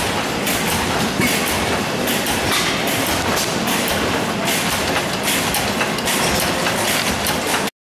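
Antique stationary gas engines running, a dense, fast, irregular mechanical clatter and clicking. It cuts off abruptly near the end.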